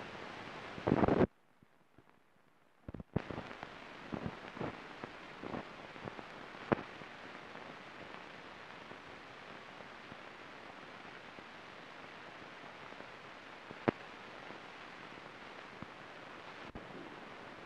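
Steady hiss of an old newsreel soundtrack, dotted with occasional sharp clicks and pops. A short loud burst about a second in is followed by a brief near-silent gap before the hiss sets in.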